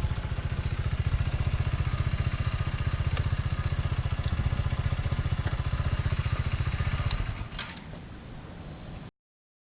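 Kawasaki Z125 Pro's 125cc single-cylinder engine running steadily on the throttle, then easing off about seven and a half seconds in. The sound cuts off suddenly near the end.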